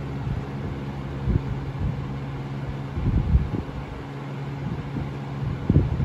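Lasko Ultra Force box fan running: a steady motor hum under the rush of air from its blades. Its airflow buffets the microphone in low gusts now and then, strongest about three seconds in and near the end.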